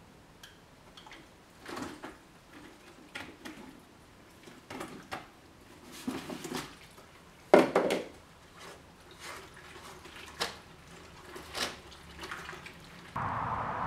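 Powdered tile adhesive tipped into a plastic bucket of water and stirred by hand with a wooden stick: irregular wet scrapes, sloshes and knocks of the stick against the bucket, the loudest knock about seven and a half seconds in. Shortly before the end a steady noise cuts in abruptly.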